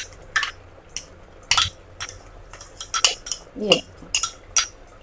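Spoon clinking and scraping against a bowl and the rim of a pressure cooker in a quick, irregular series of short taps, as thick onion-and-yogurt paste is scraped into the pot.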